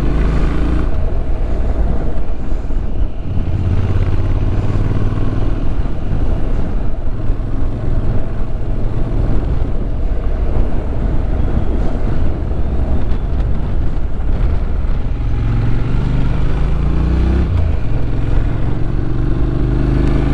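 Motorcycle engine running under way on a mountain road, its note rising twice near the end as the bike accelerates.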